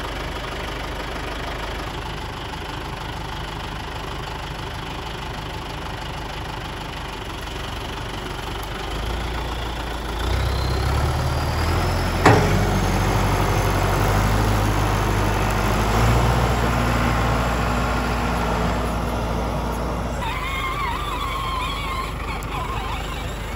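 John Deere 5093E tractor's diesel engine idling, then speeding up about ten seconds in with a rising whine, and a single sharp clack a couple of seconds later. Near the end a higher, wavering whine joins the engine.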